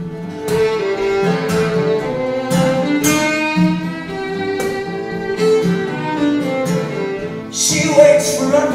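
Instrumental break of a folk song: a fiddle bowing the melody over a strummed guitar, with a louder accent about eight seconds in.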